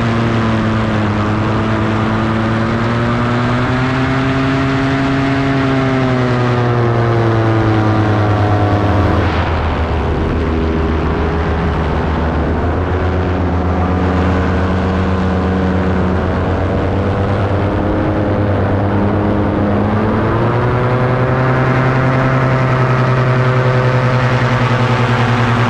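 Paramotor engine and propeller running steadily in flight. About nine seconds in the throttle comes back and the pitch drops to a lower steady note; near the end it is throttled up again to a higher pitch.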